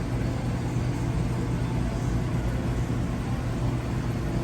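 Steady low mechanical hum with a constant low tone, holding an even level throughout.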